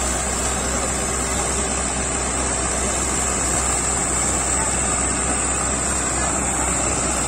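Farmtrac 6055 tractor's diesel engine running steadily as the tractor pulls a rear-mounted implement across a dry field.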